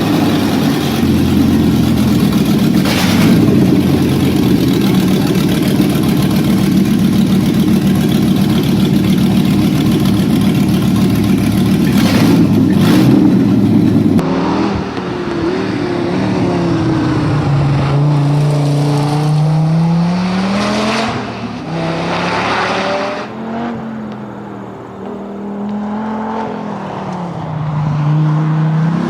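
Dodge Viper V10 engine running loud and hard at a steady pitch. About halfway through the sound changes abruptly, and the engine note then rises and falls several times as it is revved and accelerated.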